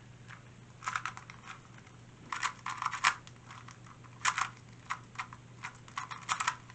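Non-magnetic 2x2 speed cube being turned fast by hand in a timed solve: quick clusters of light plastic clicks and clacks in spurts with short pauses between, over a faint steady low hum.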